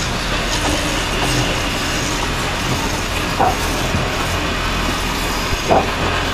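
Floor-level wood lathe running while a chisel cuts a spinning wooden charpai leg: a steady mechanical noise with the scrape of the tool on the wood. Two brief sharper sounds stand out, about three and a half and nearly six seconds in.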